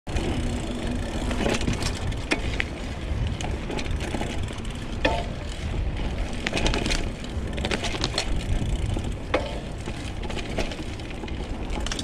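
Mountain bike riding over a dirt singletrack: a steady rumble of tyres on the trail, with frequent sharp clicks and knocks as the bike rattles over bumps.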